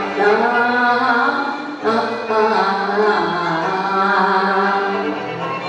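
A singer holding long, wavering sung notes of a Chinese vocal piece over instrumental accompaniment. A new phrase begins about two seconds in.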